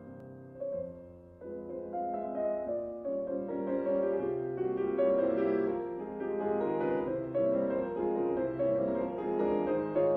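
Background piano music, a slow run of held notes that starts soft and grows fuller and louder after about a second and a half.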